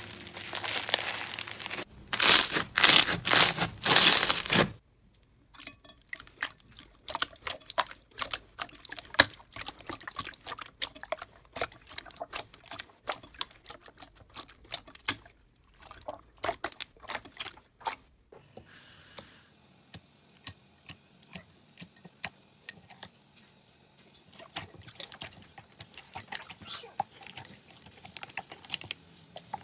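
Slime being squeezed, stretched and poked by hand: dense crackling for the first few seconds, then a long run of sharp little pops and clicks.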